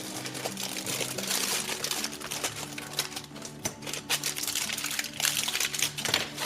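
Crinkling and rustling of packaging with many small clicks, typical of a toy-set bag being opened and small plastic pieces handled, over soft background music. The crinkling stops suddenly at the end.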